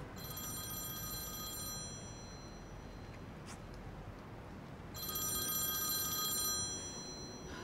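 Mobile phone ringtone ringing twice, each ring about a second and a half long, with a pause of about three seconds between them.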